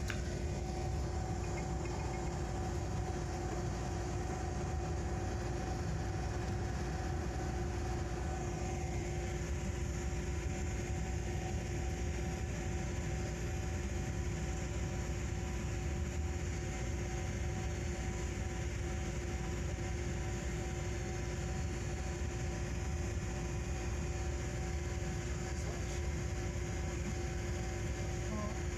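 Diesel locomotive running, heard from inside its cab: a steady engine drone and low rumble with a constant hum that does not change.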